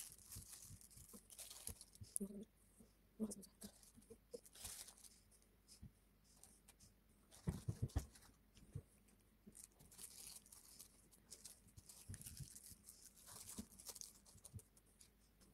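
Faint crinkling of paper cake cases and sweet wrappers, with scattered light taps and knocks as pastries and small items are set into a tray; a short run of louder knocks comes about halfway through.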